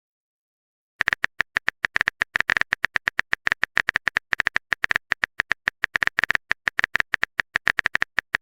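Keyboard typing sound effect: rapid, even clicks at about nine or ten a second, starting about a second in and running on steadily, as a chat message is typed out.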